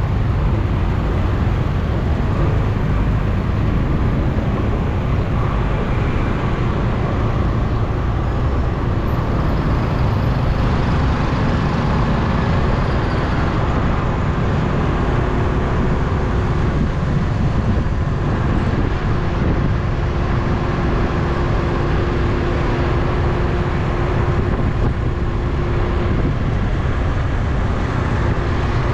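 Road traffic of motorbikes and cars heard from in among it while moving down the street: a loud, steady, unbroken rush of engine and road noise, with a steady hum holding for about ten seconds past the middle.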